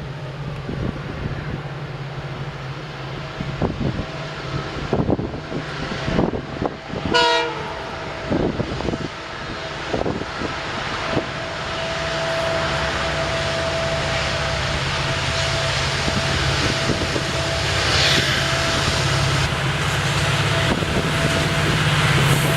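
Twin EMD WDG-4 (GT46MAC) diesel-electric locomotives working under load with their 16-cylinder two-stroke engines, getting louder as they approach. A short horn blast comes about seven seconds in, with several knocks around it, and a steady high whine, the jet-like sound of the turbochargers, carries through most of the second half.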